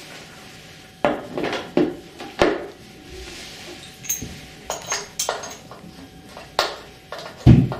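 Clicks and knocks from the parts of a salon dryer stand being handled: the support pipe seated into its wheeled base and the base shifted on the floor. A heavy thump near the end is the loudest.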